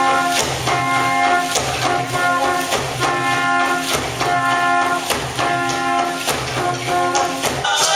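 Brass band music: held brass chords repeating about once a second over a steady percussion beat, changing to a new passage near the end.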